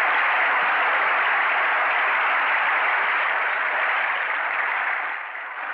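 Audience applauding, a dense, steady clapping that fades away near the end.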